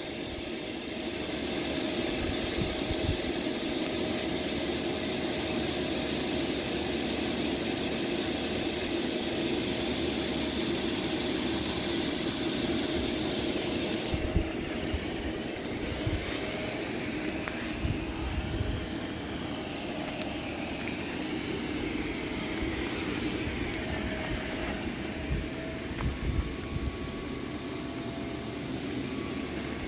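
Electric air blower running steadily, inflating an inflatable bounce house through its inlet tube. Its steady whine edges slightly higher in pitch in the second half.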